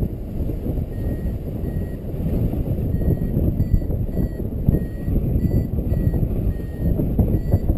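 Airflow rushing over the microphone in paraglider flight, with a flight variometer beeping in short pips about two or three times a second, the climb tone that signals rising air.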